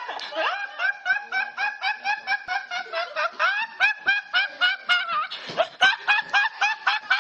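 A teenage boy laughing uncontrollably in rapid, high-pitched squeaky bursts, about four to five a second, with a short catch of breath a little after five seconds in.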